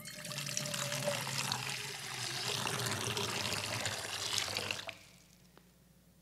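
Water poured in a stream from a pitcher held high into a baptismal font, splashing steadily into the bowl and stopping suddenly about five seconds in.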